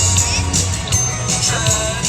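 Background music with singing and a steady bass line.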